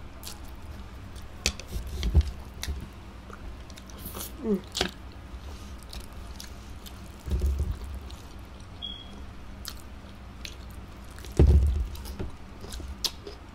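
Chewing of chow mein noodles eaten with chopsticks, with scattered small clicks and three dull thumps, the loudest about eleven seconds in.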